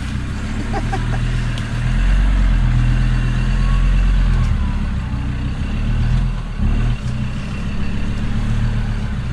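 Troller T4 jeep's engine working under load as the truck crawls up a deep eroded rut, its revs swelling and easing, with a brief dip about six and a half seconds in before it picks up again.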